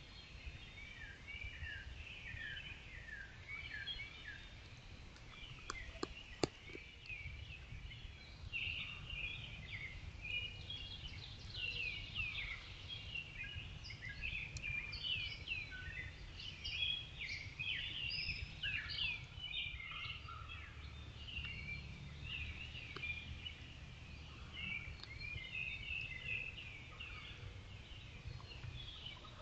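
Dawn chorus of several songbirds: many overlapping short chirps and whistles, over a steady low rumble. Two sharp clicks about six seconds in.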